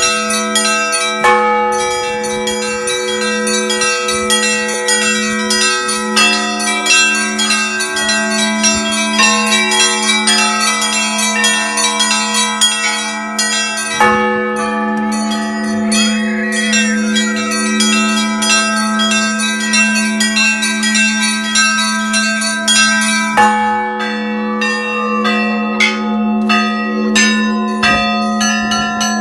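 Russian church bells rung by hand in a continuous peal: rapid strokes of small high bells over the steady hum of a larger bell, with a heavier stroke standing out now and then.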